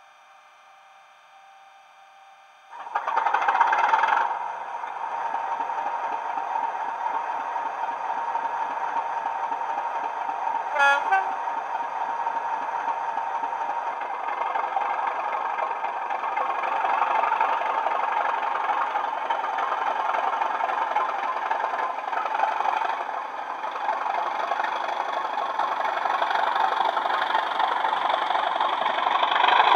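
Sound decoder of a Bachmann Class 37 model diesel locomotive, played through a pair of small megabass speakers: quiet at first, then a horn blast about three seconds in, followed by the recorded English Electric diesel engine running steadily as the train pulls away. The engine sound grows louder near the end.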